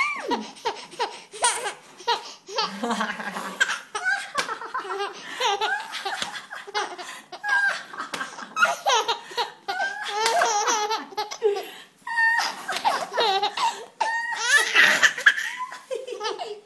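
A baby girl laughing in long runs of high-pitched laughter with short breaks between them, set off by someone's sneezes.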